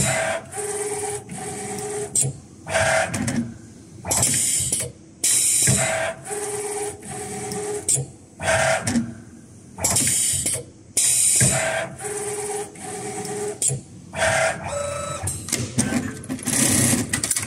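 Automatic shoe-upper eyelet punching and sewing machine cycling: short bursts of air hiss and clatter alternate with steady two-pitch motor whines as the clamp frame moves, repeating about every five and a half seconds. Near the end it changes to a continuous sewing clatter.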